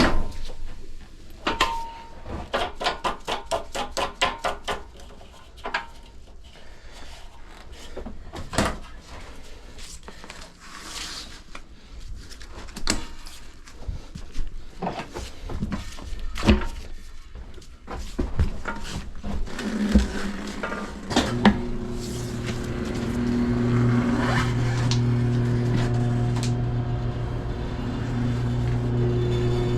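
Tire-service work noise during the demounting of a run-flat tire: a quick run of rapid clicks, scattered knocks and clanks, then about two-thirds in a motor starts and runs with a steady hum.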